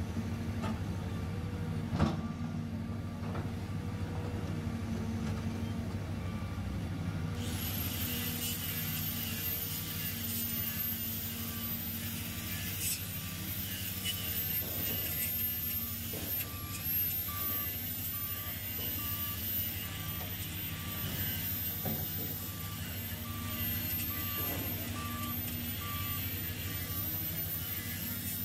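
Caterpillar 320C excavator's diesel engine running steadily as the machine works, with a sharp knock about two seconds in. From about eleven seconds a reversing alarm beeps at an even pace, a little faster than once a second, and a thin high whine comes in a few seconds before it.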